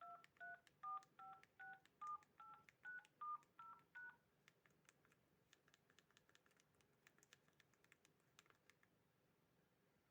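Mobile phone keypad tones: a quick series of about eleven short two-tone beeps, about three a second, stepping through the keys 2 to 9, star, 0 and hash in order, stopping about four seconds in. Faint clicking follows.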